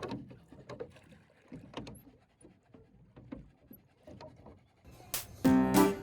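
Rowboat on the water: faint, scattered knocks and splashes. About five seconds in, loud piano music starts.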